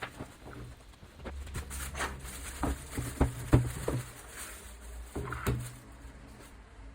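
Handling noise of unpacking: a run of irregular light knocks and clicks with some rustling, the sharpest knock about three and a half seconds in, as the robot vacuum's charging base is taken out of its packaging.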